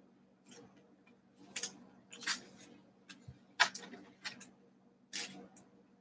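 Trading cards being handled and sorted by hand: a few short, crisp rustles and taps at irregular intervals as the cards are shifted and stacked.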